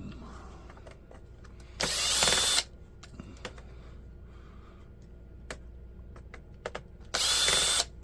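Electric drill driver with a screwdriver bit whirring in two short runs, each a little under a second, about five seconds apart, backing out laptop screws. Light clicks of handling come between the runs.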